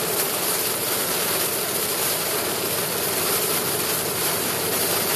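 Steady road noise inside a car's cabin on a highway in a heavy storm: an even rushing hiss.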